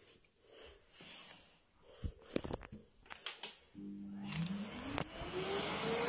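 Vacuum cleaner being switched on: a few knocks from handling, then about four seconds in the motor starts and spins up. Its whine rises steadily in pitch, and the suction hiss grows louder.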